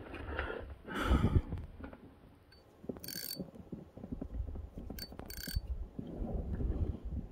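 Fishing tackle being handled: low knocks and rustling, a loud sudden clatter about a second in, and two short bright metallic whirs about two seconds apart.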